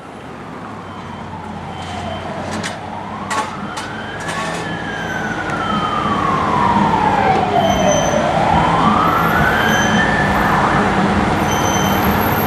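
Fire engine siren on a slow wail, its pitch sliding down and up twice, over the truck's engine, growing louder as it approaches. A few short clicks come about three to four seconds in.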